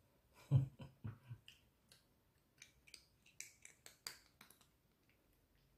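Russian Blue cat chewing a treat: a run of small crisp clicks and crunches over several seconds. Before it, about half a second in, a person gives a brief low murmur.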